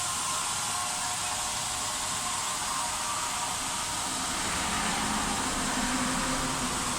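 Belt grinder running steadily with an even whirring hiss. A lower hum joins in about halfway through.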